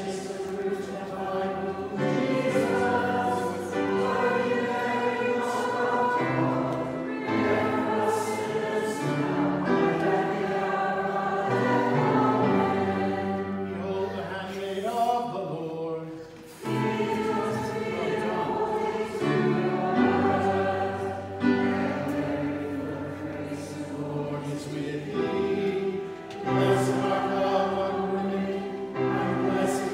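A group of voices singing a hymn in slow phrases of held notes, with a brief pause about sixteen seconds in.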